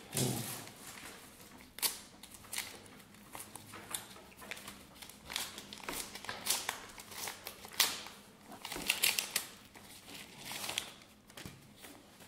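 Sheets of paper and envelopes being handled and unfolded: irregular rustles and crinkles, with a few sharper crackles between about 5 and 11 seconds in.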